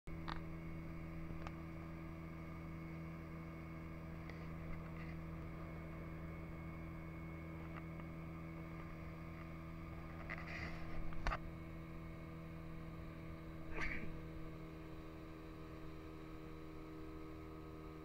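Small motorboat's engine running at a steady pitch while the boat is under way, with a few short knocks, the loudest about eleven and fourteen seconds in.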